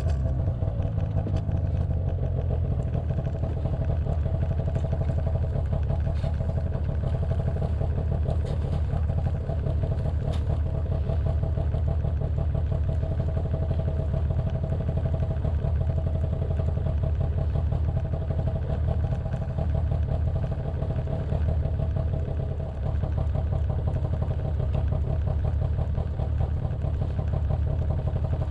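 Snowmobile engine idling steadily, with a few faint knocks partway through.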